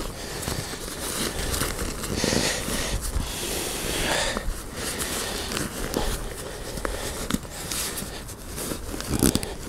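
Nylon fabric of a 5.11 Rush 72 backpack rustling and scrunching as it is pressed and pulled and its zip is forced shut. The bag is overstuffed with a bulky sleeping bag. The noise is irregular and scratchy.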